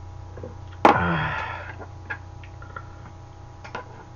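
A man's loud, falling 'kyaa' exhale just after downing a shot of whisky, about a second in, fading over nearly a second. A few light clicks of utensils follow over a low steady hum.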